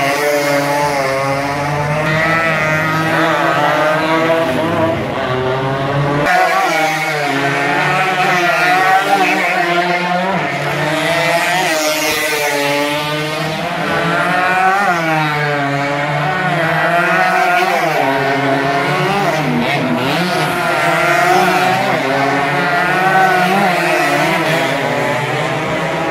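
Motorcycle engines revving, their pitch rising and falling over and over without a break, as race bikes run along the street course.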